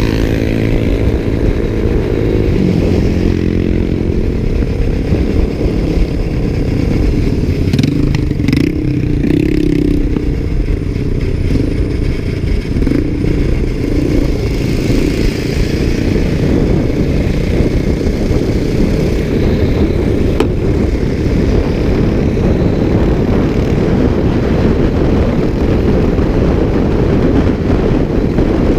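Motorcycle riding at speed: the engine running under heavy wind rumble on a camera mounted on the bike. A few short clicks or rattles come about eight to nine seconds in.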